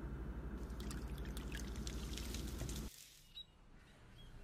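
Quiet background ambience: a steady low hum with a faint hiss that cuts off about three seconds in. A few faint chirps of caged parakeets follow.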